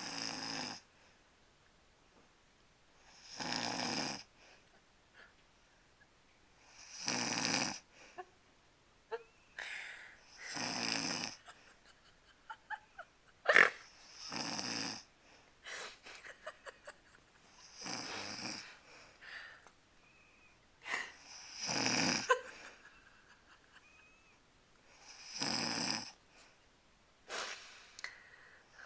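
Sleeper snoring in a slow, regular rhythm: a rasping snore about every three and a half to four seconds, eight in all. Between the snores near the middle come several short, sharp clicks.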